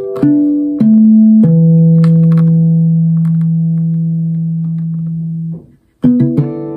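Freshly restrung Veelah Togo S guitar played in single plucked notes stepping downward, landing on a low note that rings for about four seconds before it is damped. After a brief silence, several notes are plucked together near the end.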